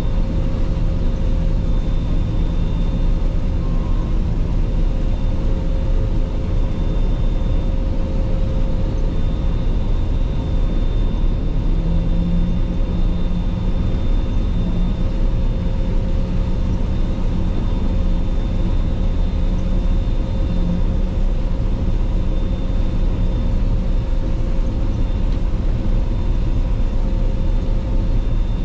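Claas Lexion 480 combine harvester running steadily at work: a continuous drone with a steady high whine over it. The low engine note grows stronger about twelve seconds in and eases again near three-quarters of the way through.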